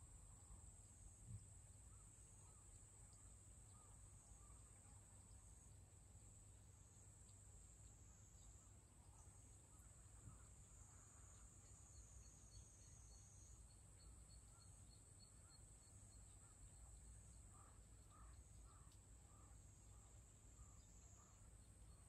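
Faint countryside ambience: a steady high-pitched insect drone, with a run of faint frog calls repeating about twice a second in the second half.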